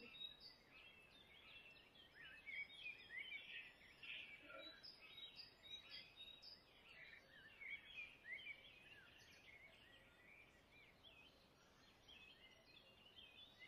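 Faint birdsong: many short, quick chirps from several birds, thinning out for a couple of seconds about two-thirds of the way through.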